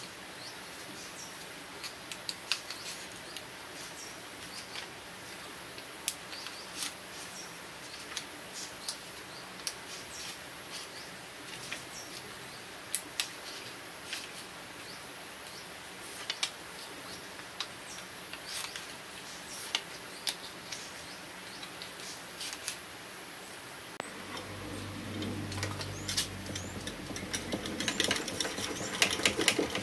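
Light scattered clicks and crinkles of stiff insulating paper being pressed into the slots of an electric motor stator. About 24 seconds in, a hand-cranked coil winding machine starts turning, with a low hum and a fast rattle of clicks that grows louder toward the end.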